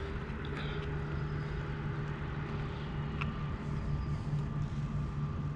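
A steady low mechanical hum, like a motor or engine running, with a faint click about three seconds in.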